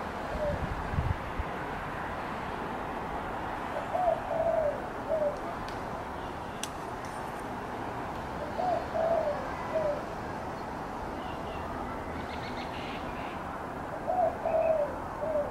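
A dove cooing, a short phrase of three or four notes repeated about every five seconds, over a steady background hiss. A single sharp click comes about halfway through.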